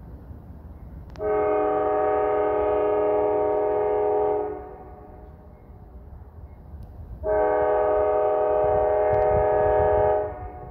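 Nathan K5LA multi-chime locomotive air horn sounding two long blasts of about three seconds each, a few seconds apart, the start of the long-long-short-long grade-crossing signal. A low rumble runs underneath.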